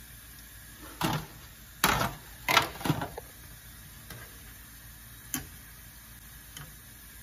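Wire spider skimmer clinking against a pot of deep-frying oil as doughnuts are turned and lifted: about five sharp knocks between one and three seconds in and one more a little after five seconds, over a faint steady sizzle of the oil.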